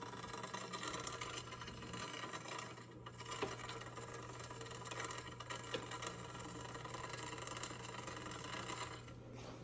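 Drivetrain of a Trek Dual Sport 8.3 hybrid turned by hand in a work stand: the chain runs over the chainring, cassette and derailleurs with a steady whir of fine ticks, as a check for chain rub on the front derailleur cage after a barrel-adjuster turn. It stops about nine seconds in.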